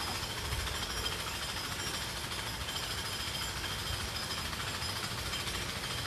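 Steady low fluttering rumble and hiss of breeze on the microphone, with faint steady high tones above it.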